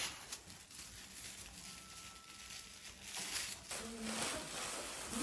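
Thin clear plastic sleeves rustling and crinkling as they are pulled off artificial Christmas tree branches and handled in a pile, growing louder and busier about three seconds in.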